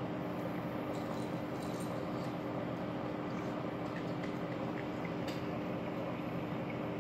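Steady hum and hiss of a reef aquarium's pumps and water circulation, with a few faint ticks.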